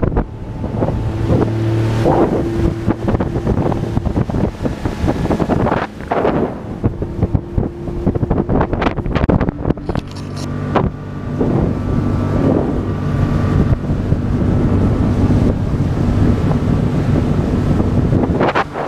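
Outboard motor on a small aluminium boat running under way at speed, a steady drone with heavy wind buffeting on the microphone.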